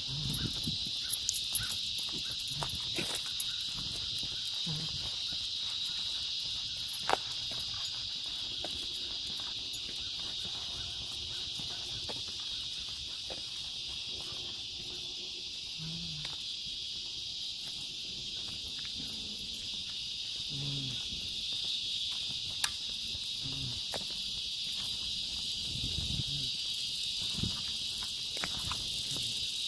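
Steady, high-pitched chorus of insects, unbroken throughout, with a few sharp clicks here and there.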